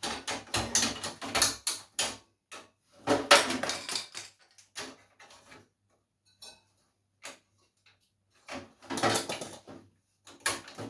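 Rattling and clicking of computer parts being pried and wrenched out of a desktop PC case. It comes in bursts: one at the start, one about three seconds in, one about nine seconds in and another near the end, with quiet gaps between.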